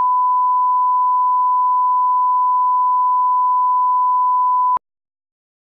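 Broadcast line-up test tone played with colour bars: one loud, steady pure pitch that cuts off suddenly near the end.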